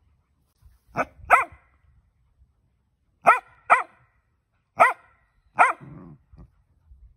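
Dachshund barking: six short, sharp, high barks, mostly in pairs, with a brief low rumble after the last.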